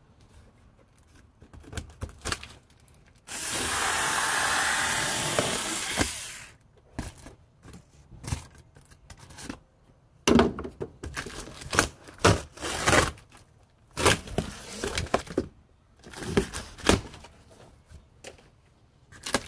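Cardboard packaging of a tool chest being opened by hand: a loud, even tearing or scraping noise of about three seconds, then a string of short knocks and rubs as the box is worked open.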